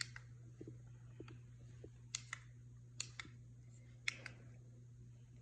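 Handheld clicker being pressed: three pairs of faint, sharp clicks, each a press and release, about a second apart, over a faint steady low hum.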